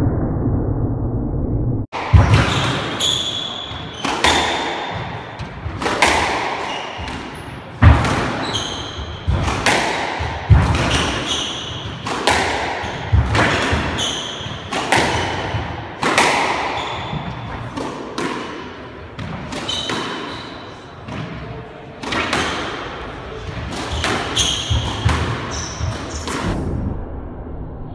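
A squash rally: the ball cracks sharply off racquets and the court walls every half second to second and a half, each hit ringing around the court, with short squeaks of shoes on the wooden floor between the hits. It starts after a muffled, dull noise that cuts off abruptly about two seconds in.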